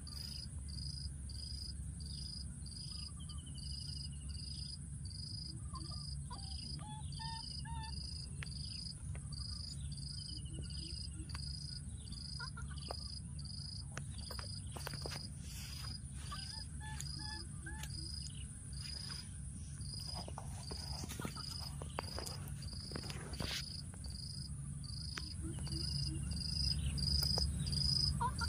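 Insects chirping in a steady high-pitched pulse, about two to three chirps a second, over a continuous higher insect hum, with a few short falling calls now and then.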